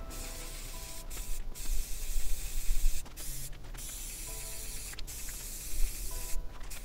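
Aerosol spray paint can hissing as a coat is sprayed onto 3D-printed armor pieces, in several runs with short breaks between them.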